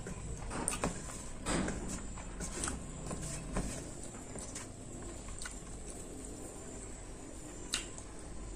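Close-miked eating sounds: chewing and wet mouth clicks of a meal of curry and rice. The clicks are busiest in the first few seconds, with one sharp click near the end.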